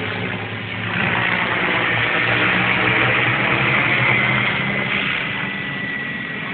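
Hurricane 550 radio-controlled model helicopter running steadily: a low rotor hum under a thin high whine. It grows louder about a second in.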